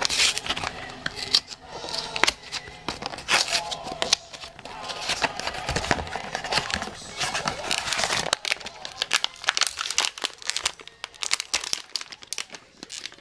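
A toy blind box being unpacked by hand: the cardboard box is opened, then a foil pouch crinkles and crackles in a dense, irregular run as it is handled and torn open.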